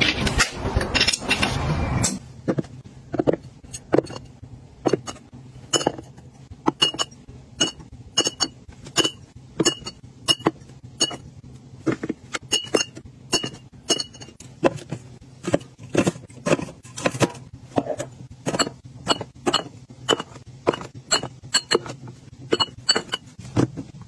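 Green glass Perrier bottles being set down on a fridge shelf and clinking against one another: a long run of separate sharp clinks, many with a brief high ring, one to three a second. A louder, continuous noise fills the first couple of seconds.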